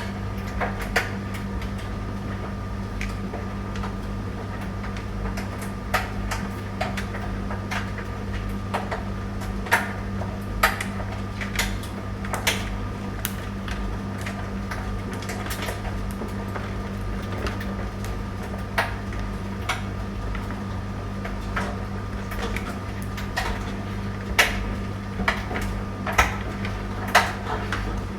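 Tumble dryer running: a steady motor and drum hum with irregular clicks and knocks as the load tumbles in the drum.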